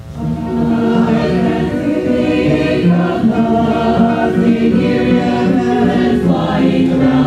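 Mixed chamber choir of men's and women's voices singing, coming back in right at the start after a short break and holding full chords.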